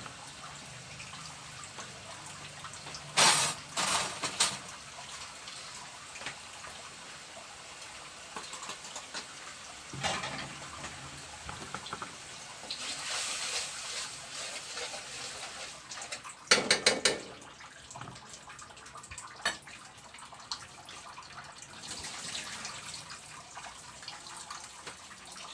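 Food frying in a pan with a steady sizzle. Several loud clatters of cookware or a utensil come through, two in quick succession a few seconds in and a cluster a bit past the middle.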